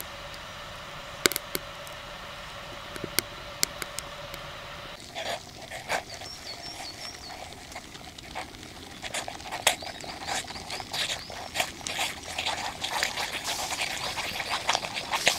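Wood-fired storm kettle at work: for the first five seconds a steady tone with scattered crackles from the fire in its chimney, then a dense, quickening rattle of clicks and spits as the water comes to the boil and steam escapes from the spout.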